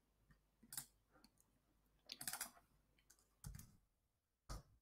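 A few faint computer clicks, single ones about a second apart and a short cluster of several about two seconds in, against near silence.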